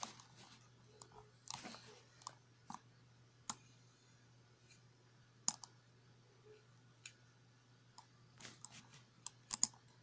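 Scattered, irregular sharp clicks and crackles of a small clear plastic cup being handled by a toddler, with a cluster of them near the end. A faint steady low hum runs underneath.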